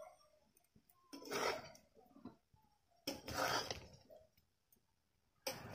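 Metal spatula scraping and turning soaked flattened rice and vegetables in a wide black wok, in strokes about two seconds apart.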